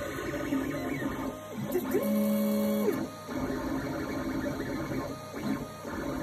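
Geeetech A20M 3D printer printing, its stepper motors whirring in quickly changing tones as the head moves. About two seconds in, one longer move gives a steady pitched hum for about a second, sliding up at the start and down at the end.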